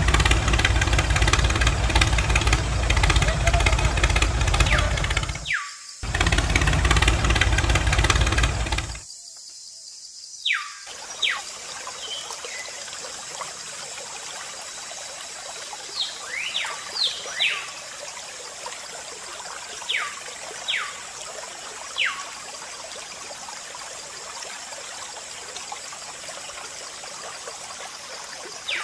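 A small engine running steadily with a fast ticking beat, cutting out briefly and then stopping suddenly. After that, a thin stream of water splashes steadily into a plastic basin, with a few short, falling chirps over it.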